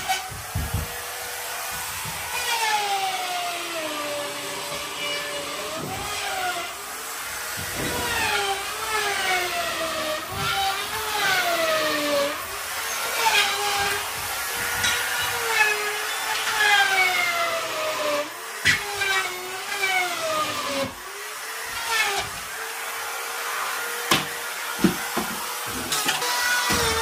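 A power drill's motor whining, speeding up and slowing down over and over, its pitch sagging as it takes load and then recovering. A few sharp knocks come in between.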